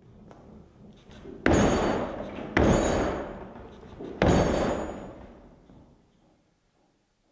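Three heavy thuds of a man jumping hard on a Bertram's fiberglass foredeck, each ringing on for about a second through the hull, after a few lighter knocks. This is a bounce test of the deck, stiffened with two layers of biaxial fiberglass laid over thin chopped-strand mat.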